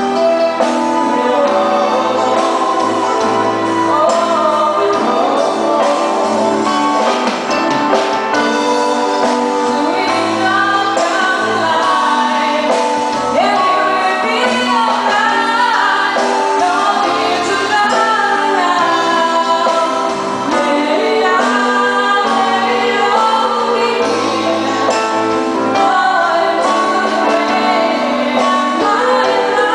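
A live band playing a song with a lead singer over the music, loud and steady.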